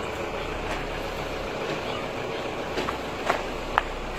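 Steady street and vehicle noise, a low rumble under an even hiss, with a few sharp clicks near the end.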